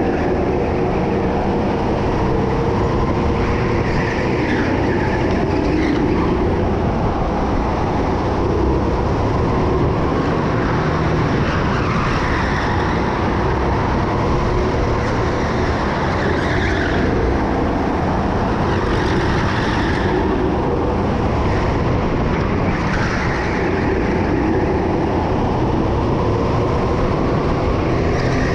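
Racing go-kart heard onboard while driven at speed: a loud, steady drone and rumble that shifts a little in pitch through the corners.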